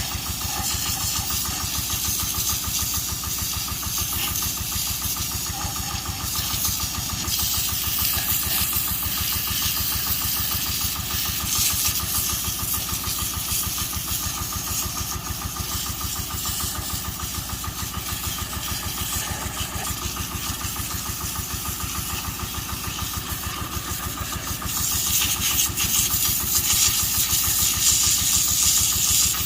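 Excavator's diesel engine running steadily with an even low pulse and a hiss above it. It grows louder and more hissy near the end.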